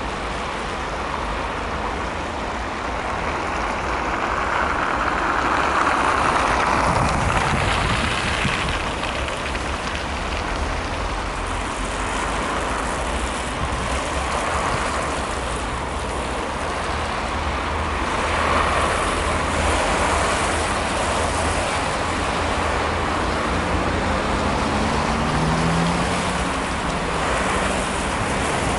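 Steady city road traffic noise, swelling and fading as vehicles pass, over a low rumble. Near the end a vehicle's engine rises in pitch as it accelerates.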